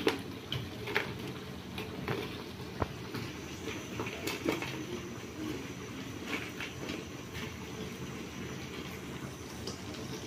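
Chili chicken gravy simmering in a steel kadhai over a gas flame, a steady bubbling hiss, with a few sharp clicks and knocks as fried chicken pieces are dropped in from a steel plate.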